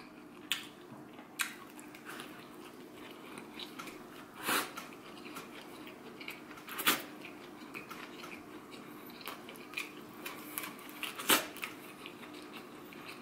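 A person chewing a mouthful of mini hamburger slider, with soft wet mouth sounds and a few sharp smacks and clicks a few seconds apart.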